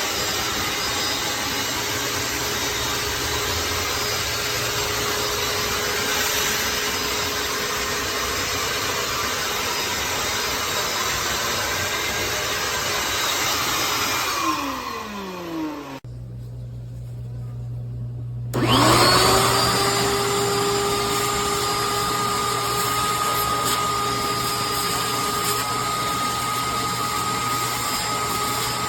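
Compact Shop-Vac wet/dry vacuum motor running with a steady whine, a little loud. About fifteen seconds in it winds down, and a few seconds later it is switched on again and spins back up to full speed.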